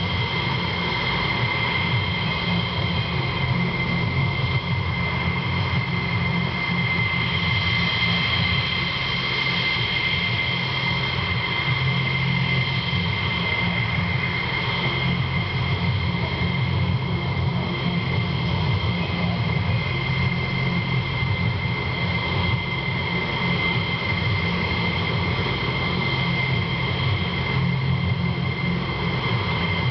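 F-16 jet engines idling: a steady high whine with two held tones over a low rumble.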